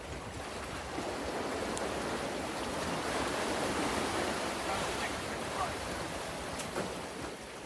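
Ocean surf washing in, a steady rushing that swells in the middle and eases off near the end.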